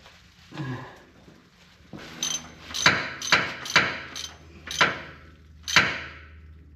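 Steel screwdriver tapping metal-on-metal in the knock sensor port of a small-block Chevy 350's engine block, poking out the sediment that plugged it: about seven sharp, ringing clinks at uneven intervals, starting about two seconds in.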